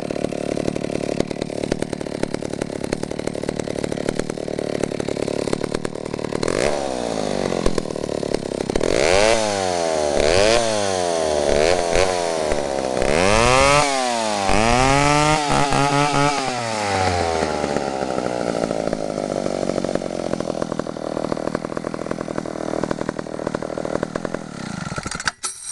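Vintage McCulloch 1-52 two-stroke chainsaw idling, then revved up and down several times in quick succession, settling back to idle and shutting off abruptly near the end.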